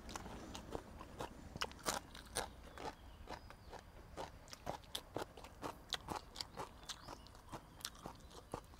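A person chewing crunchy raw vegetables with his meal: faint, irregular crisp crunches, a few a second.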